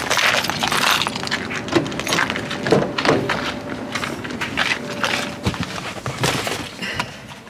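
Bags and gear being handled and set down while loading a car: a run of knocks, thuds and rustling.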